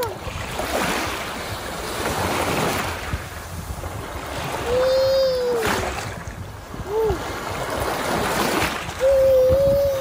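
Small waves washing and splashing in shallow water at the shoreline. Three times, about five, seven and nine seconds in, a baby gives a short high wordless vocal sound.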